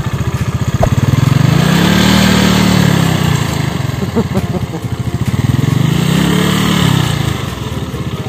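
Yamaha Mio Sporty automatic scooter's small single-cylinder four-stroke engine, the throttle opened and eased off twice so the engine note rises and falls each time.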